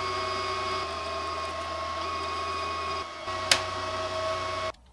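Wire-feed motor of a Titanium 170 MIG welder running steadily with the gun trigger held, pushing solid wire through the gun liner. It dips briefly about three seconds in, a sharp click follows, and it cuts off abruptly near the end.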